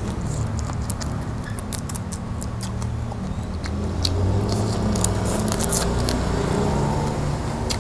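Close-up eating sounds: irregular crisp clicks and crackles of grilled prawn shells being handled and bitten, over a steady low hum.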